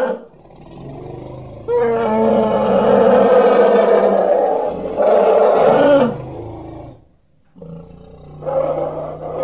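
Elephant calling: loud, harsh roaring calls with a short break between them, a brief quiet spell, then another call starting near the end.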